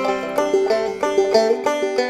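Background music: a quick tune of plucked string notes, several picked notes a second, each ringing briefly and fading.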